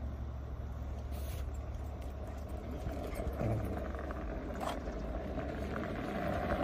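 Fat-tyred electric scooter riding over stone paving: a steady low rumble with a fainter, steady higher hum.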